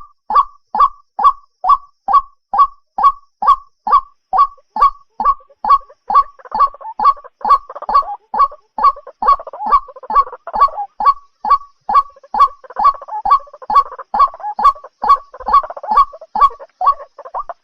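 White-breasted waterhen calling: a loud, evenly repeated note about two and a half times a second. From about six seconds in, a second, rougher chattering call runs under it.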